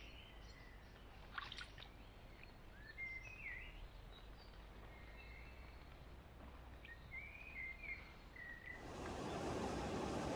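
Birds singing in short chirps and trills over faint outdoor background, with a short click about a second and a half in. Near the end the sound cuts abruptly to a louder, steady rushing noise.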